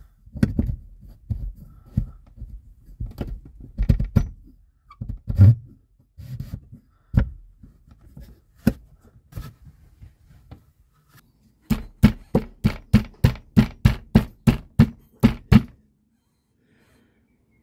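Workshop knocks and thuds, irregular at first, then a quick even run of about fifteen sharp knocks, roughly four a second. The sound cuts off abruptly near the end.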